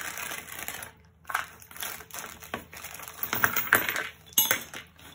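A clear plastic hardware bag crinkling as hands open it and take out steel bolts. A few sharp clicks of metal parts knocking together are loudest in the second half.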